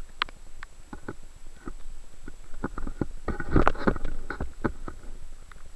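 Underwater sound recorded in a tidal surge: a steady low rumble of moving water with scattered sharp clicks and knocks, which come thick and loudest about three and a half seconds in.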